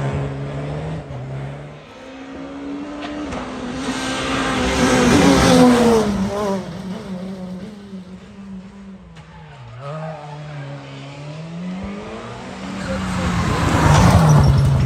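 Rally car engine revving hard and changing gear as it drives past, its pitch climbing and dropping. It is loudest about five seconds in and again near the end.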